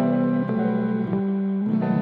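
Instrumental background music led by guitar, with sustained notes that change pitch a few times.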